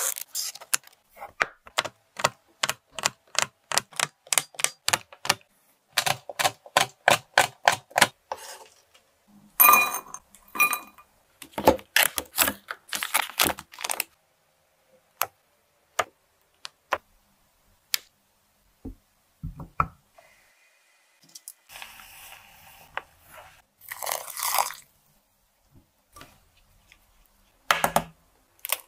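A dark chocolate bar being broken up: a quick run of crisp cracks and clicks, several a second, for about the first dozen seconds. After that come scattered light taps, a stretch of rustling, and a thump near the end.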